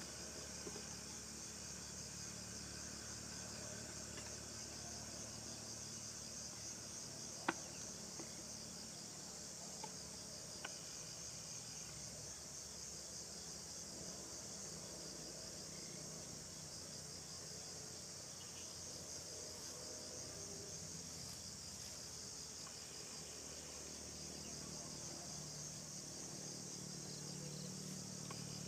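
Steady, high-pitched chorus of insects, like crickets, chirring without a break, with one sharp click about a quarter of the way through.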